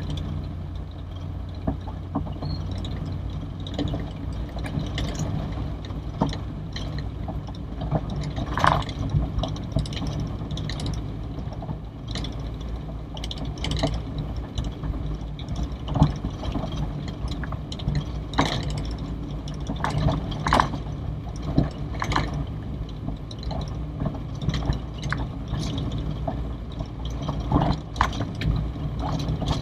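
Old Toyota Corolla DX heard from inside the cabin while driving: a steady low engine and road drone, with frequent short knocks and rattles from the body and suspension.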